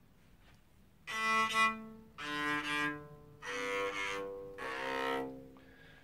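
NS Design electric cello bowed, four separate notes of about a second each after a short pause. A scrunchie is wrapped round the strings near the nut as a mute, and the notes sound a bit muted, with no buzzing.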